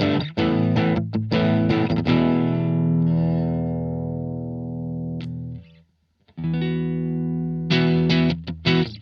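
Electric guitar played through a Blackstar ID:Core Stereo 40 amplifier: short chopped chords, then one chord left ringing and fading for a few seconds before it is cut off. After a brief silence, chords ring out again and choppy playing resumes near the end.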